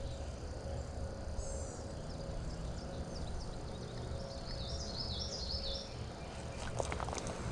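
Small birds chirping and singing over a steady low outdoor rumble, with a quick run of high repeated notes around the middle. A few faint clicks near the end.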